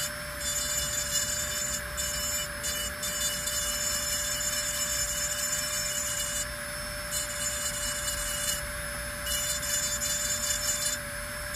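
Dental lab micromotor handpiece running with a steady whine as its bur grinds grooves into the occlusal surface of a porcelain upper molar crown. The high-pitched grinding breaks off briefly several times as the bur is lifted and set back on the tooth.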